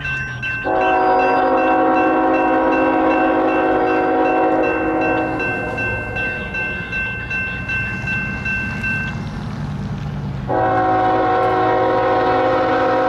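Norfolk Southern locomotive air horn sounding for a grade crossing: one long blast starting under a second in and lasting about five seconds, then a second long blast from about ten seconds in, over the low rumble of the passing train.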